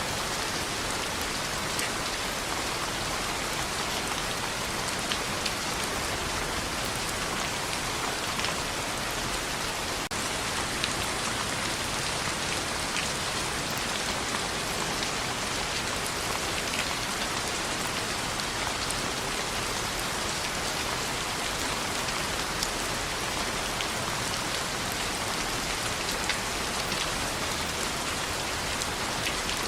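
Steady rain pattering on a window, an even hiss with scattered sharp ticks, a few slightly louder than the rest.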